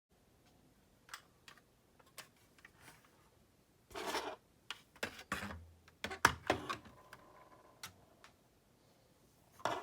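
Scattered light clicks and taps of small plastic toy parts being handled on a work surface, with a brief rustle about four seconds in and a sharper click near the end.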